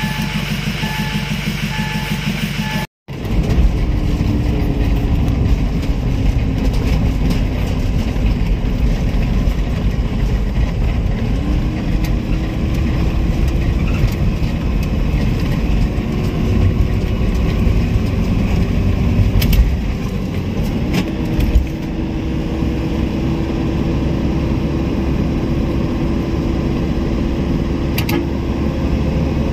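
Hyundai GRX diesel engine idling steadily, with a rapid faint beeping, running freshly fitted injector nozzle tips. After about three seconds it cuts to the engine pulling the vehicle on the road, its pitch rising and stepping up several times through acceleration and gear changes over steady road noise, with a few brief clicks.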